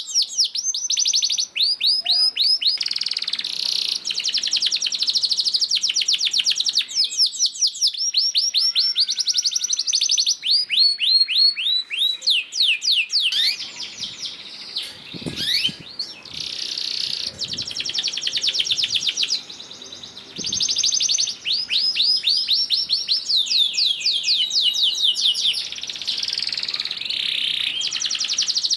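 Domestic canary singing in long rapid trills, each a quick run of repeated sweeping notes, with brief pauses between phrases.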